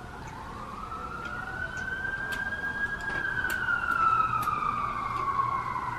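Emergency vehicle siren wailing: one slow rise in pitch over about three seconds, then a slow fall, growing louder toward the middle. Faint clicks come and go under it.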